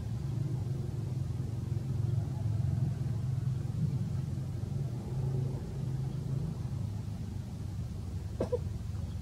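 A steady low rumble, like an engine running nearby, with one short sharp sound near the end.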